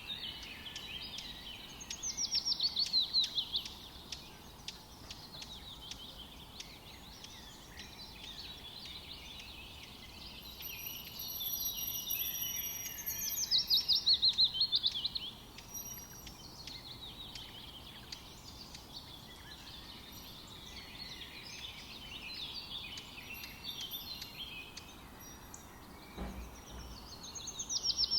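Wild songbirds chirping and calling. A loud, fast trill of rapid notes falling in pitch is repeated three times: near the start, about halfway through, and at the end.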